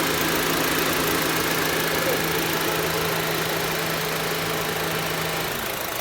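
Honda City i-DSI four-cylinder engine idling steadily, with a low even hum that drops away shortly before the end.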